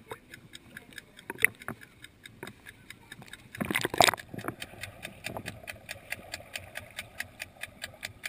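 Pool water lapping and slapping around a camera at the surface, then about four seconds in a loud splashing rush as the microphone goes under water. After that the sound is muffled underwater noise with a rapid, even ticking.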